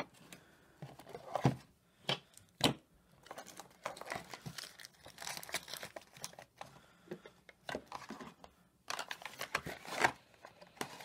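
Handling of cardboard packaging and small bottles: irregular light knocks and paperboard rustling and crinkling as bottles are packed back into a small cardboard box and its flaps are closed.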